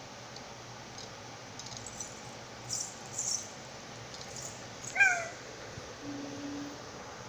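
A baby's short, high-pitched squeal about five seconds in, dropping slightly in pitch at the end. A couple of faint hissy rustles come before it.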